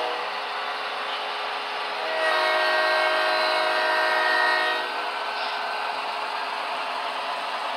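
HO scale model diesel locomotive's sound decoder blowing a multi-chime horn: one long blast, a chord of several steady tones, about two seconds in and lasting nearly three seconds, over the steady running noise of the model train.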